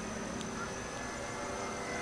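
Electric motor and propeller of an E-flite Cessna 150 RC plane, heard from a distance as a faint, steady drone at an even pitch.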